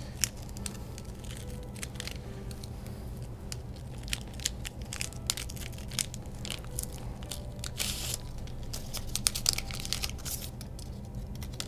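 Paper wrapping crinkling and tearing as a depth micrometer rod is unwrapped by hand: a run of irregular crackles and small clicks, thickest about two-thirds of the way through.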